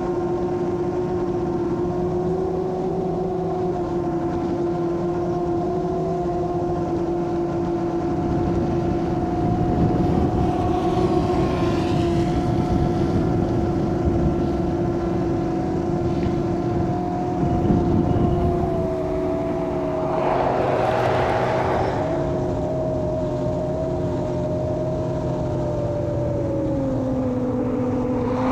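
Molecula FPV M7 drone's motors and two-blade propellers droning steadily in fast forward flight, the pitch stepping down about two-thirds of the way in and again near the end as the throttle eases. A few brief bursts of hissy noise ride over it.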